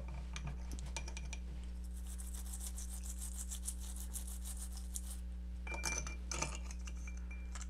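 Toothbrush bristles scrubbing a small circuit board and connector in a glass bowl of isopropyl alcohol: a soft, rapid scratching made of many small ticks. About six seconds in come a few light clinks against the glass bowl.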